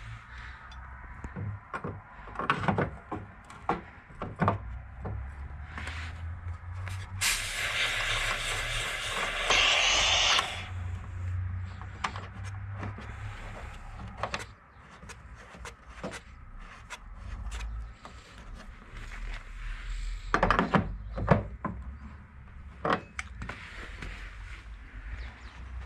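Scattered metal knocks and clatter of workshop handling over a low hum, with a loud hiss lasting about three seconds partway through.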